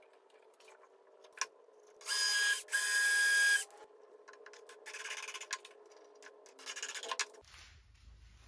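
Scraping strokes on plywood: two loud ones about two seconds in, each under a second long and carrying a thin steady squeak, then a few fainter scrapes.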